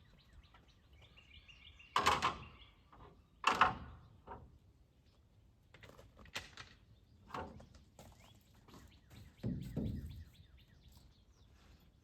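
Hammer striking nails into wooden barn siding in separate blows, the two loudest about two and three and a half seconds in, with a duller, lower thud near the end. A bird gives a quick run of chirps about a second in.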